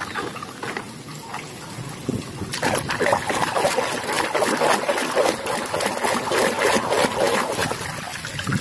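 Muddy water sloshing and splashing in a plastic tub as a hand swishes plastic toys around to wash them, starting about two and a half seconds in. Before that, a few light clicks.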